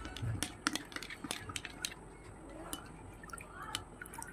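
A steel spoon stirring salt into spiced panipuri water in a glass bowl: soft liquid sloshing with irregular sharp clinks of the spoon against the glass.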